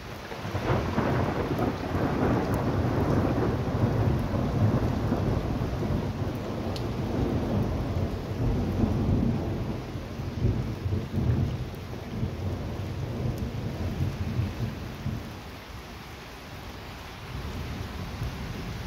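A long roll of thunder breaks about half a second in and rumbles heavily for around fifteen seconds before dying down, with a weaker rumble near the end. Steady rain goes on underneath.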